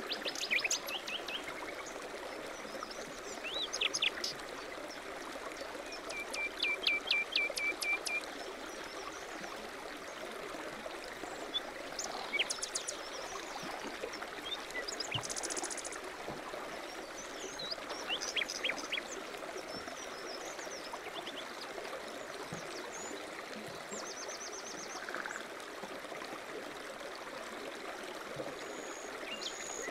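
Steady babble of a small stream with birds singing over it: scattered short chirping phrases and a few quick trills.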